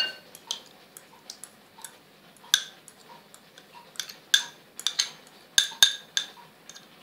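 Metal spoon clinking and scraping against glass bowls as thick greens paste is spooned into a bowl of curd: irregular sharp clinks with a short ring, several in quick succession in the second half.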